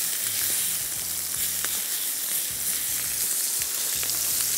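Chicken breast pieces sizzling in hot oil in a frying pan: a steady frying hiss, with a few light clicks as the pieces are moved.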